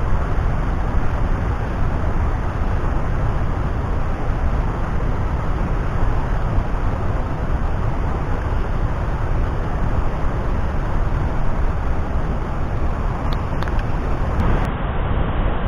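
River waterfall: water pouring over rocks in a steady, unbroken rush, loud and deepest in the low end.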